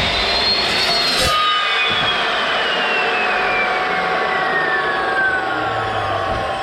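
Evolution S355CPS cold-cut metal chop saw, its toothed blade finishing a 45-degree cut through steel. The cutting noise breaks off about a second in, and the motor and blade then wind down freely with a slowly falling whine.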